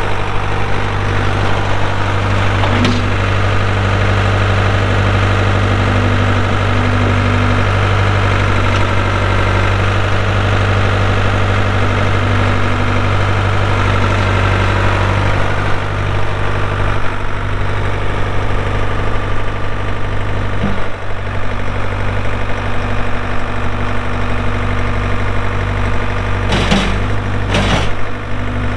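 Ford 555D backhoe loader's four-cylinder diesel engine running steadily. A higher-pitched whine rises over it for a stretch early on, and a few sharp knocks come through, two of them close together near the end.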